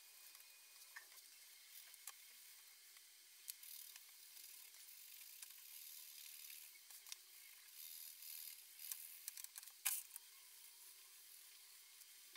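Faint scratching of a felt-tip marker on paper, with scattered small clicks and one sharper click about ten seconds in, over a quiet hiss.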